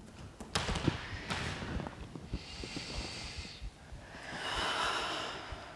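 A woman breathing deeply while lying in a yoga stretch: two long breaths, the second a deep inhale about four seconds in. A few soft thuds of movement on the mat come first.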